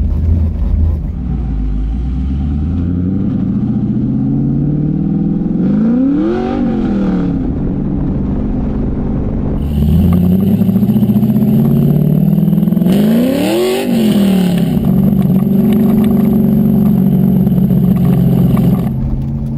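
Swapped LS1 V8 in a 1986 Camaro IROC-Z pulling hard under acceleration, its exhaust note climbing steadily and dropping sharply twice at the upshifts, then holding a steady drone.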